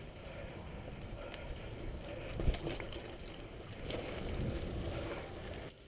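Mountain bike ridden fast over a dirt trail, heard from a helmet-mounted camera: tyre and chassis rattle over the ground with wind buffeting the microphone, and a single hard thump about two and a half seconds in. The noise drops off suddenly near the end.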